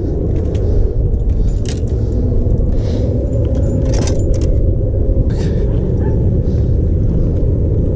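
Steady low rumble of wind buffeting the microphone, over a few short crunches and clicks of footsteps on barnacle-crusted jetty rocks.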